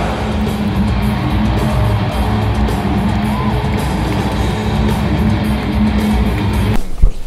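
Loud rock music with electric guitar played over an arena's sound system during a pregame light show. It cuts off abruptly near the end.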